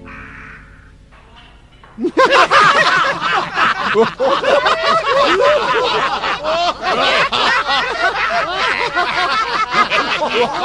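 A crowd of many voices laughing and chattering together, starting abruptly about two seconds in after a fading bit of music.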